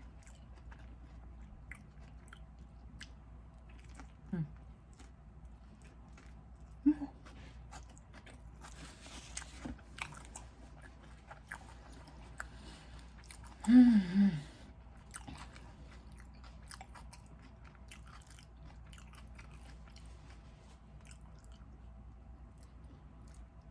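Close-miked eating: chewing with wet mouth clicks and a crunchy bite about nine seconds in, broken by a few short "mm" hums, the loudest about fourteen seconds in.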